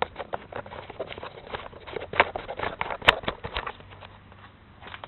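Footsteps and camera handling: irregular clicks and light knocks, thinning out after about three and a half seconds. The outboard is not running.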